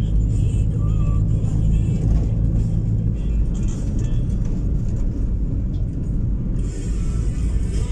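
Road noise inside a moving car: a steady low rumble of engine and tyres, with music playing over it.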